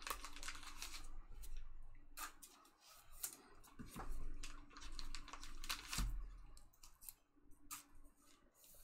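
Trading cards and pack wrappers being handled: a run of short rustles, scrapes and snaps as cards are slid and flipped through.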